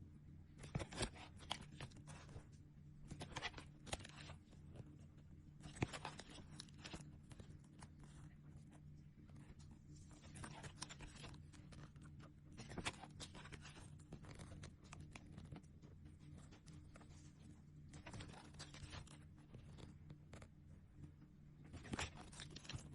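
Faint crinkling and rustling of plastic sticker packets and sticker sheets being handled, in short crackly bursts every few seconds, over a steady low hum.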